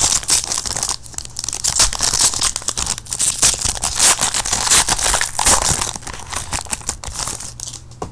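A foil trading-card pack from a 2013 Panini Prestige football hobby box being torn open, its wrapper crackling and crinkling as the cards are pulled out. The sound thins out near the end.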